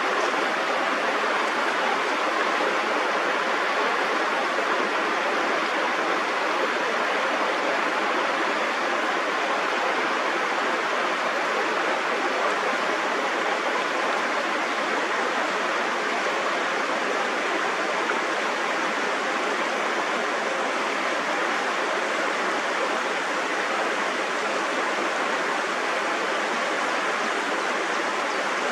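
Steady rushing water, an even unbroken hiss with no distinct splashes or changes.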